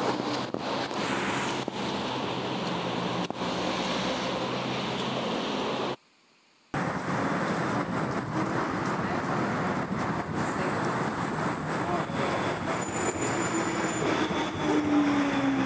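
Wet-street traffic and tram-stop noise: an electric tram standing at the platform with a low hum under a steady hiss of cars on a rain-soaked road. The sound drops out to near silence briefly about six seconds in, at an edit cut.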